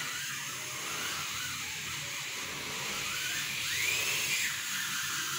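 Dental handpiece running on a child's tooth, a steady high whirring hiss whose pitch rises and falls a few times, most clearly about four seconds in.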